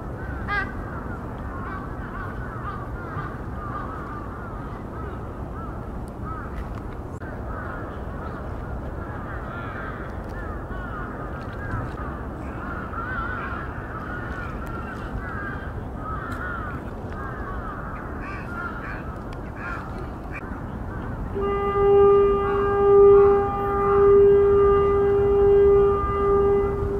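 Birds calling and chirping over a steady low outdoor hum. About three-quarters of the way in, a loud horn-like tone at one steady pitch starts and holds, swelling and dipping, to the end.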